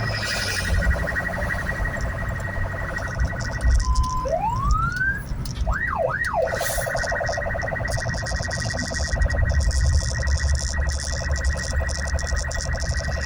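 Electronic emergency-vehicle siren sounding a rapid warbling tone. About four seconds in it breaks off for a short beep, a rising wail and two quick up-and-down sweeps, then the rapid warble resumes. Low vehicle rumble runs underneath.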